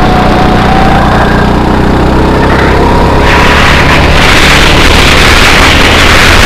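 Rental go-kart engine running at speed from the driver's seat, its pitch rising slowly as the kart gains speed along the straight. From about three seconds in, a loud wind hiss over the microphone joins it.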